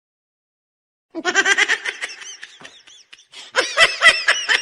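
High-pitched human laughter starting about a second in. After a brief pause it breaks into quicker, rhythmic bursts of laughing.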